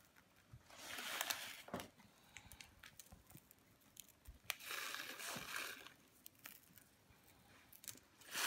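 A packet of pearl sugar rustling as the grains are shaken out and scattered, in two swells about a second long, with scattered small ticks of grains landing.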